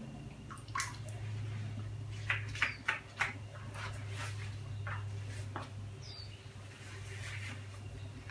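A wet, freshly dyed silk scarf being handled and spread out by gloved hands: scattered soft clicks and rustles over a steady low hum, with one short high chirp about six seconds in.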